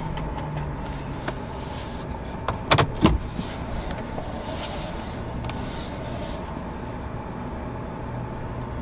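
Pickup truck engine running at low speed, heard from inside the cab as the truck reverses, a steady low hum. Two sharp knocks come close together about three seconds in.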